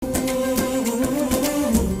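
Background music: a sustained melody over a steady percussive beat.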